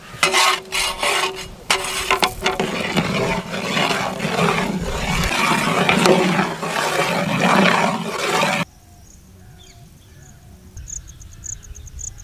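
A long metal ladle stirring and scraping through a large pot of steaming biryani masala gravy, in rhythmic strokes at first and then a dense, continuous churning. About two-thirds of the way through it cuts off suddenly to a quiet outdoor background with insects chirping in rapid pulses.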